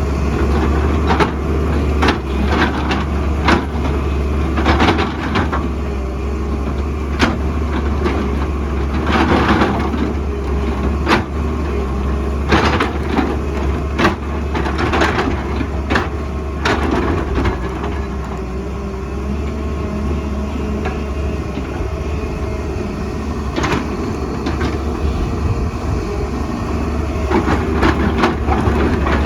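An excavator's diesel engine runs steadily under repeated sharp knocks and cracks as the bucket digs into and breaks up rock and earth. The knocks come thick and fast for the first dozen seconds or so, thin out past the middle and pick up again near the end.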